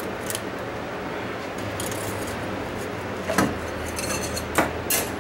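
Hand work on an engine's intake: a handful of sharp clicks and light metallic clinks, most of them in the last two seconds, as zip ties are cut and a rubber intake boot is worked loose.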